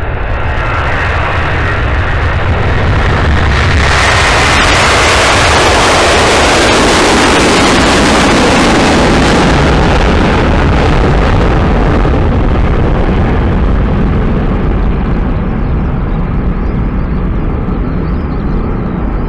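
Airbus A330 twin-engine jet airliner taking off at take-off thrust: a loud, continuous jet roar with a hiss on top. It swells to its loudest a few seconds in as the aircraft lifts off and passes, then slowly fades as it climbs away.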